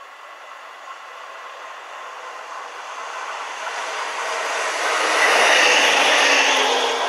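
A train passing on the rails. The rushing noise of the wheels builds steadily, is loudest a little past the middle, and begins to fade near the end.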